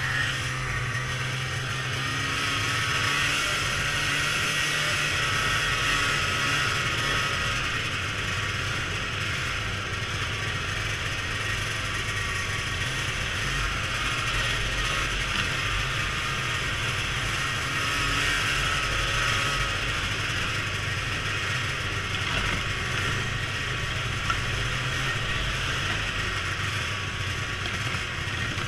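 Snowmobile under way on a snow trail: its engine and track running steadily, with a mechanical clatter.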